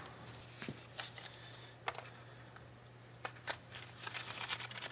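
Light, scattered clicks and taps of spark plugs being handled and set down on a workbench, more frequent near the end, over a steady low hum.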